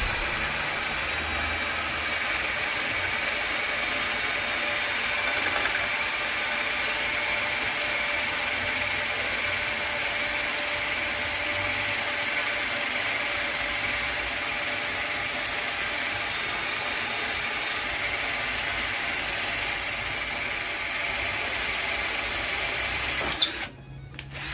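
Tramontina 10.8 V cordless drill-driver running continuously as its twist bit bores through a ceramic roof tile, in plain rotary drilling without a hammer mode. A high thin whine joins the motor after about seven seconds and holds, and the drill stops about a second before the end.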